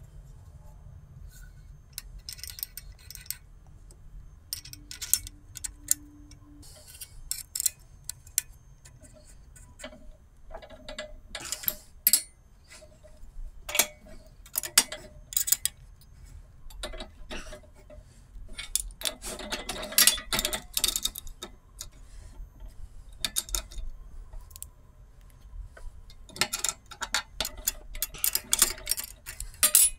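Irregular metallic clicks and clinks of steel tooling and a stamped AK receiver being handled and set into a riveting jig on a shop press, over a steady low hum. The clinks come in denser clusters about two-thirds of the way through and near the end.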